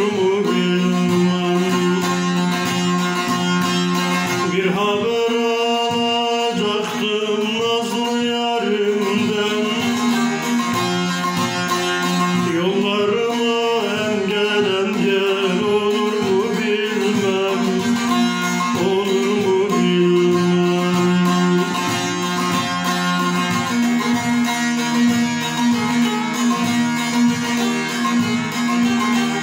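A long-necked Turkish saz (bağlama) being played: plucked melody notes over steady ringing drone notes, with a man's voice singing along in places.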